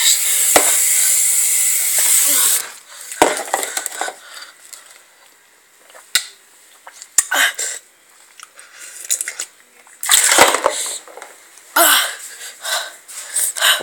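Cloth rubbing and rustling close against a phone's microphone as the phone is handled. The first couple of seconds are a loud steady hissing rustle. After that come scattered bursts of rustling and a few sharp handling clicks.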